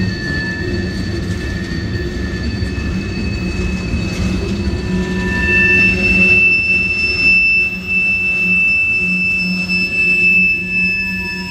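Tank cars of a freight train rolling past, a steady low rumble of wheels on rail with several high, steady wheel squeals over it; the loudest squeal comes about halfway through.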